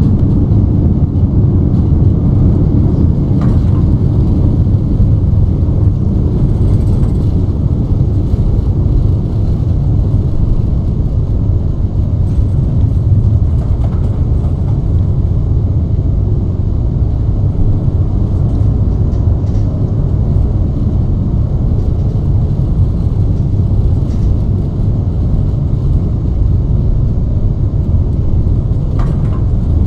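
Boeing 737 MAX 7 airliner's steady low rumble of engines and rushing air during the windy approach.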